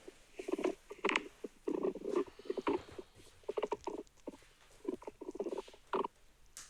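Human stomach gurgling and grumbling during digestion: irregular runs of short, squelchy bubbling bursts with brief pauses between them.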